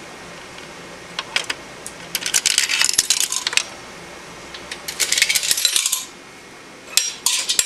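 A quarter clattering through a payphone's metal coin mechanism and chute, in several bursts of metallic rattling: a few clicks about a second in, two longer clatters, and a short rattle near the end.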